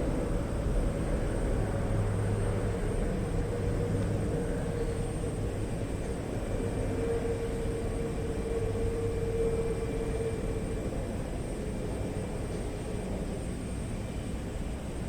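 Jet airliner engines running, a steady rumble with a hum that swells about halfway through and then eases off.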